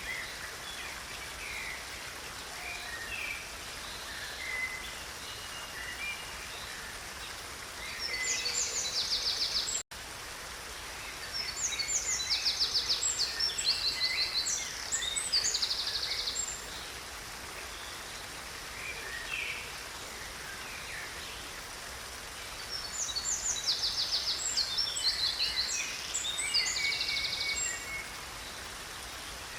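Steady rushing of a stream with songbirds singing over it in three bouts of rapid, high trilling phrases. The sound drops out for an instant about ten seconds in.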